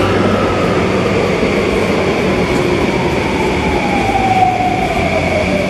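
Metro train pulling into a station platform, its motor whine falling steadily in pitch as it slows.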